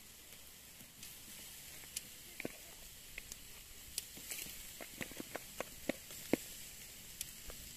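Wood fire in a stone fireplace crackling: a steady hiss with irregular sharp pops and snaps, most of them in the second half.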